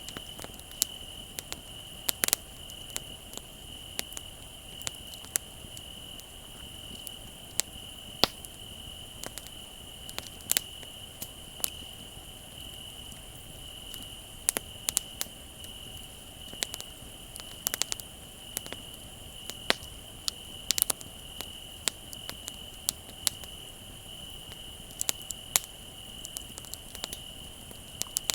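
Campfire wood crackling and popping with irregular sharp snaps, over the steady, unbroken trilling of crickets.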